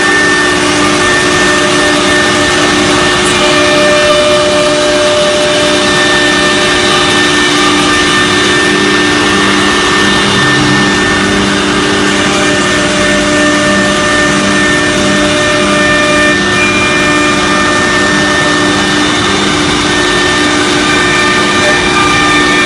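CNC router with a 6 kW HSD spindle running steadily: a loud, even machining noise with several steady whining tones held throughout.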